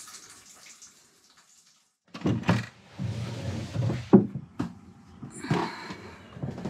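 Near silence for about two seconds, then handling and movement in a sailboat's cabin: irregular knocks and thumps over a low rumble, with a brief hiss about three seconds in.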